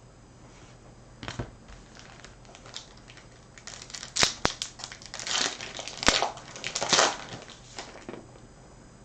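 A foil trading-card pack wrapper being torn open and crinkled. There is a single click early on, then a run of sharp crackles and clicks from about four seconds in to about eight.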